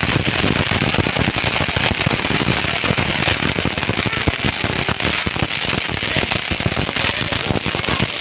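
Firecrackers going off in a continuous rapid crackle: many small sharp bangs packed closely together, at a steady loudness throughout.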